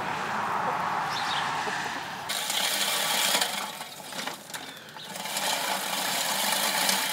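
Fiskars manual push reel mower cutting tall grass, its spinning reel blades whirring and clattering as they shear the blades with a scissoring action. It starts about two seconds in, eases off briefly in the middle and picks up again.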